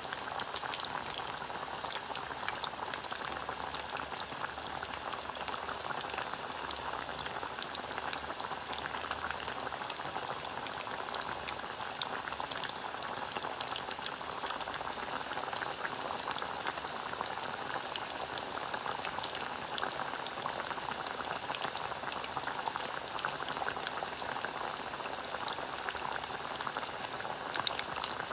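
Hot cooking oil boiling and bubbling in a pan, a steady sizzle dotted with many small crackles and pops.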